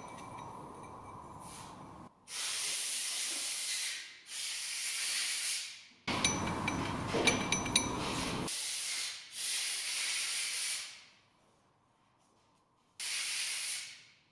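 Compressed-air blow gun blasting in a series of about six short hissing bursts, each a second or two long, cleaning a spindle clutch housing; a few light metallic clinks come through in the middle burst.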